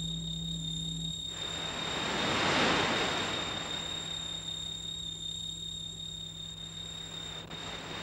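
A rushing noise with no clear pitch swells in about a second in, peaks a second and a half later and slowly dies away, over a steady electrical hum with a faint high whine.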